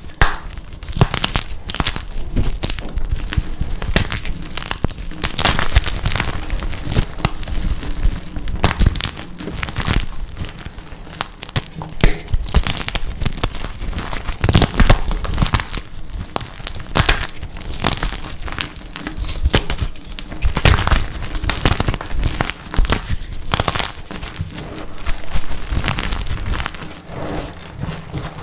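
Dyed gym chalk blocks being crushed and crumbled, a dense, irregular run of crunches and crackles.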